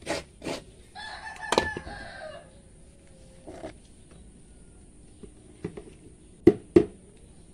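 A rooster crows once, about a second in, a single call of about a second and a half that drops in pitch at its end. Near the end come two sharp knocks close together, the loudest sounds, with a few lighter clicks elsewhere.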